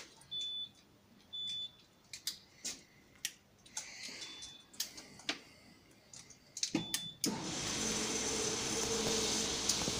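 9 mm cartridges clicking one by one into a pistol magazine as it is loaded, with a few short high beeps between the clicks. About seven seconds in, a steady louder machine noise with a low hum starts up and keeps going.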